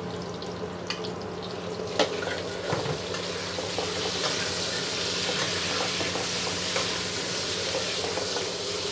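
Garlic, ginger and pork sizzling in a wok while a metal wok ladle stirs and scrapes them. There are a few sharp clicks of the ladle against the wok in the first three seconds, and the sizzle grows louder from about three seconds in.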